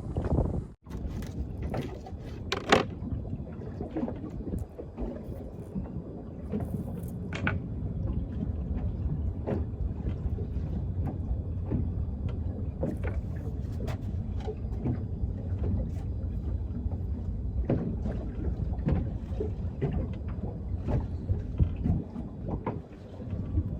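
Steady low rumble of a small boat on the water, with scattered short clicks and knocks.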